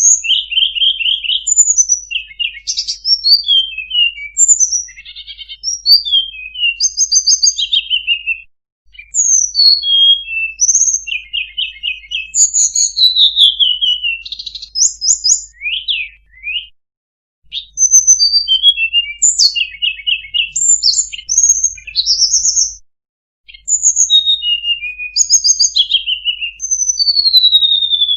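A tledekan gunung songbird singing a fast, varied song of high chirps, rapid trills and sweeping whistled notes, in long phrases broken by a few short pauses.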